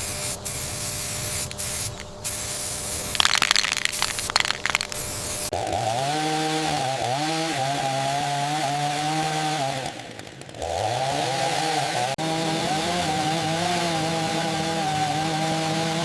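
Chainsaw running at high revs while cutting, its pitch dipping under load and recovering, easing off briefly about ten seconds in before running again. Before the saw comes in there is a noisy stretch with a few short, louder bursts.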